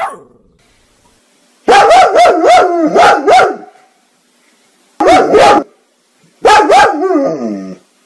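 Dog barking loudly in three volleys: a quick run of about six barks, two more after a pause, then a last pair with the final bark drawn out and falling in pitch.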